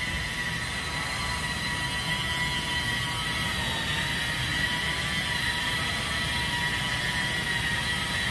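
Electric car polisher running with a steady high whine over a low rumble.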